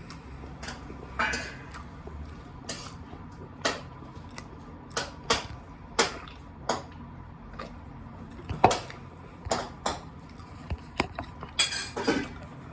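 Dishes and cutlery clinking and clattering in irregular sharp knocks, the loudest a little past two-thirds of the way through.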